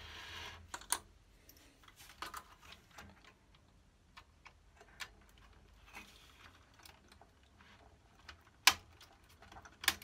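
Light, irregular clicks and taps of a screwdriver and fingers working a screw inside a cassette deck's metal chassis, with a brief rub at the start and two sharper clicks near the end.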